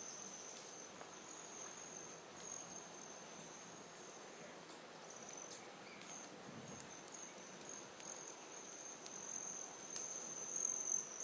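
A steady, high-pitched insect trill that runs unbroken, with a few faint ticks over it.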